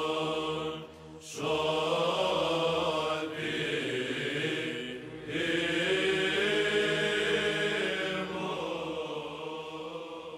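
Orthodox chant: slow, sustained sung notes over a steady held low note. It breaks off briefly about a second in and again about five seconds in, then fades out near the end.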